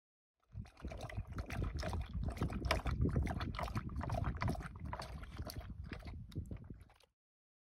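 A dog lapping water from a clear plastic container: a quick, uneven run of wet laps that starts about half a second in and cuts off near the end.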